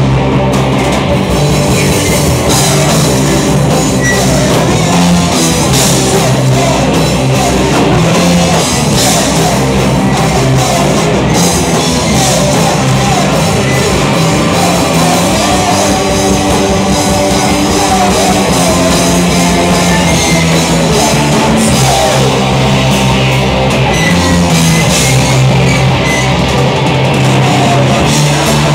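Live rock band playing loud, with electric guitar and drums going without a break.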